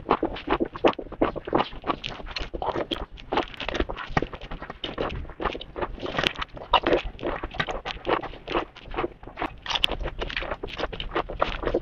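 Close-up biting and chewing of bitter gourd (changkha): a quick, irregular run of crunches and mouth sounds.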